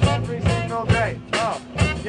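A live saxophone, drum kit and electric bass trio playing an upbeat instrumental, with a steady drum beat, a bass line underneath and short swooping saxophone phrases on top.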